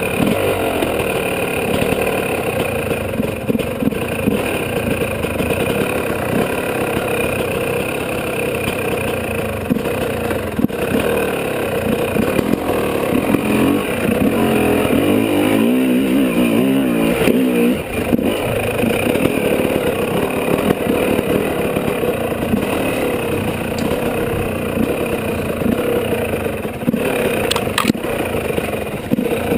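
Dirt bike engine running under load, its pitch rising and falling as the throttle opens and closes, with a few sharp knocks as the bike goes over rocks and roots.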